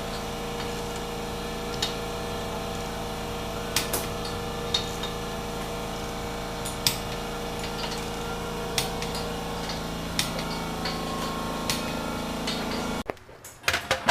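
Scattered light clicks and clinks of hand tools, every second or two, over a steady low machine hum. The hum cuts off suddenly near the end.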